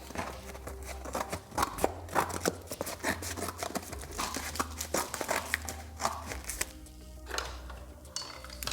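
Background music, with many short clicks and rustles of a piece of cardboard being handled over a steady low hum.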